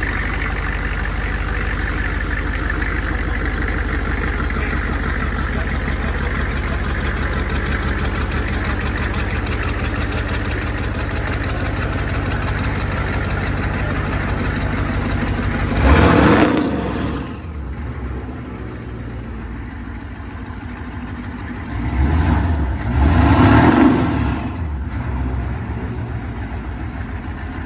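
A 6.5-litre twin-turbo engine of a home-built rat rod idling steadily on its first run. It is revved briefly about two-thirds of the way through, then settles to a quieter idle and is revved twice more near the end.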